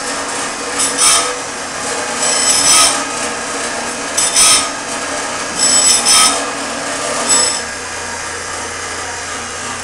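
Automatic band saw blade sharpener and setter running: its electric motors hum steadily while the grinding wheel rasps against the blade's teeth in short, high, ringing bursts every second or so as each tooth is indexed and ground. The grinding stops about three-quarters of the way through, leaving the steady motor hum.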